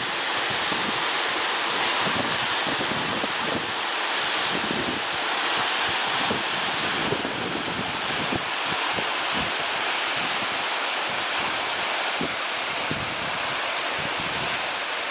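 Leuenfall waterfall pouring down a rock face into its plunge pool: a steady, loud rush of falling water, with low buffeting from wind on the microphone.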